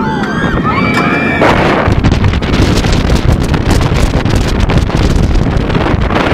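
Wind buffeting the microphone of a rider-worn camera as a B&M wing coaster train runs at speed, a loud and steady rush. High, gliding screams from riders are heard for the first second and a half.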